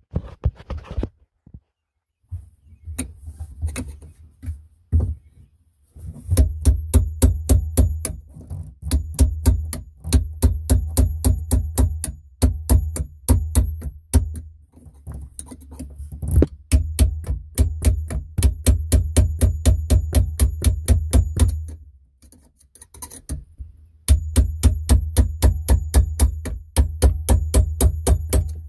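Rapid hammer taps on a screwdriver held against the driveshaft's seal carrier of a 1997 Sea-Doo GTX: runs of sharp metallic strikes at about five a second with short pauses, knocking the tight part loose. The strikes start about six seconds in.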